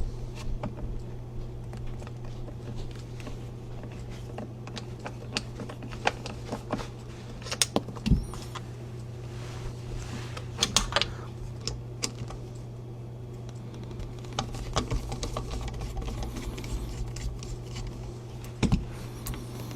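Scattered small clicks, taps and clinks of metal parts being handled as an M1903 rifle is taken apart, a few sharper knocks among them, over a steady low hum.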